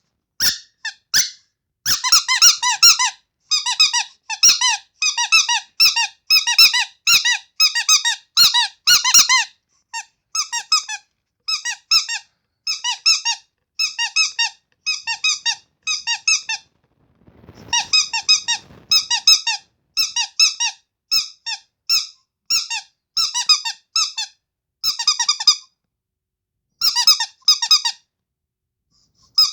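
Rubber carrot-shaped squeaky toy squeezed over and over, giving bursts of high-pitched squeaks about once a second, with a short low rustling noise midway and brief pauses near the end.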